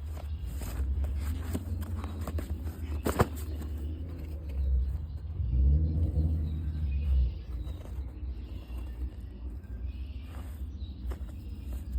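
Puppy scratching, chewing and tugging at a cardboard snack box, a run of scattered scratches and clicks with a sharp click about three seconds in. A louder low rumble comes in about halfway through and lasts under two seconds.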